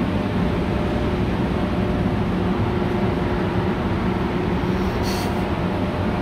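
Metro train standing at an underground platform: a steady hum and rumble of its running equipment with a few faint steady tones, and a short hiss about five seconds in.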